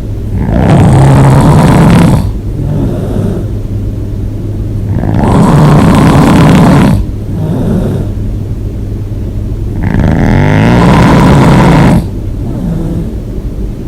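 A person snoring hard with the mouth open: three long, loud snores some four to five seconds apart, with quieter stretches between.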